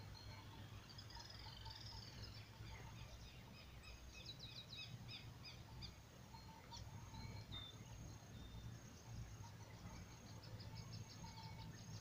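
Faint rural outdoor ambience: small birds chirping and calling here and there, with short runs of rapid high chirps, over a low steady hum.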